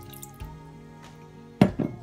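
Background music, with water trickling from a glass bowl into a stainless steel pot near the start. Two sharp knocks about one and a half seconds in are the loudest sounds.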